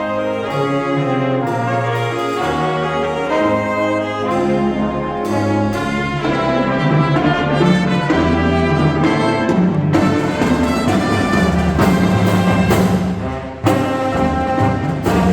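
Marching band's brass section playing a melody in held notes, growing fuller about six seconds in, with drum hits joining from about ten seconds; the music breaks off briefly near the end and comes straight back in.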